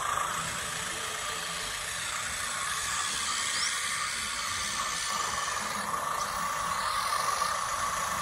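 Engine-sound module of an RC model Massey Ferguson 185 tractor playing a steady tractor engine sound while the model pushes soil with its front blade.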